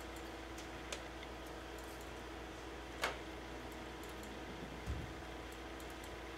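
A few scattered clicks of a computer keyboard and mouse being worked, one sharper about three seconds in and a low thump near five seconds, over a steady room hum.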